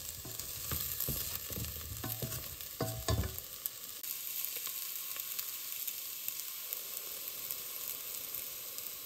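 A spatula stirs and scrapes pan-fried spiced potatoes around a stainless steel pan, with knocks and short squeaks of metal on metal, over oil sizzling. After about three and a half seconds the stirring stops and only the steady sizzle of the hot pan goes on.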